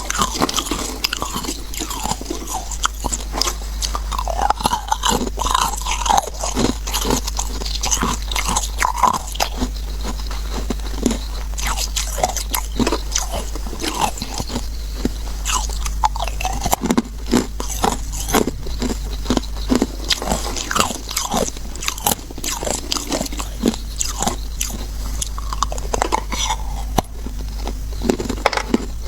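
Igloo ice being bitten and chewed, a long run of loud, irregular crunches close to the microphone, over a steady low hum.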